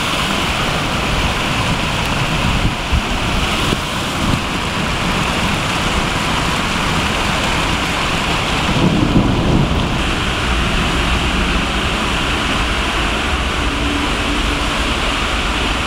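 Heavy thunderstorm downpour: a steady, loud hiss of rain pouring onto a flooded street, with running water, and a brief low surge about nine seconds in.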